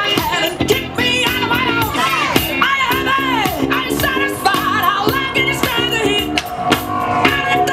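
Upbeat song with singing over a steady drum beat, played loud.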